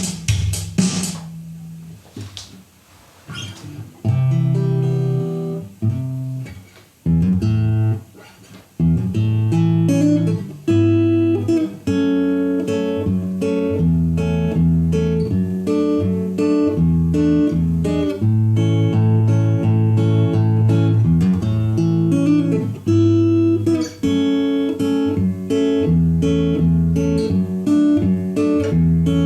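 Fender CD-60 electro-acoustic guitar with an X2-Double pickup, played through an active speaker: an instrumental passage of picked and strummed chords. After a few sharp beats at the start and a short quiet gap, the playing starts about four seconds in and goes on steadily.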